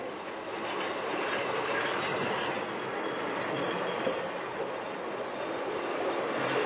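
Passenger train coaches passing close by, with the steady noise of wheels running on the rails, growing a little louder near the end.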